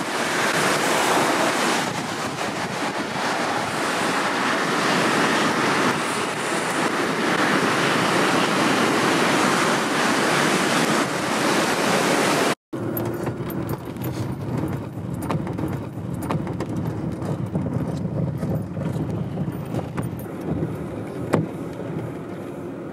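Floodwater of a swollen river rushing past bridge piers: a loud, steady rush of water. About halfway through, the sound cuts to a lower, rougher rumble with scattered knocks: a 4WD vehicle coming through water lying over a gravel road.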